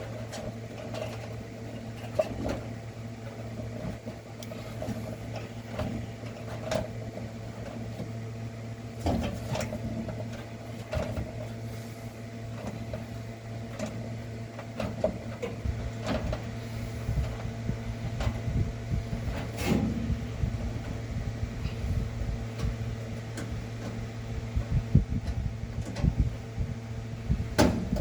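Scattered small clicks and knocks of dryer parts and connectors being handled, over a steady low hum.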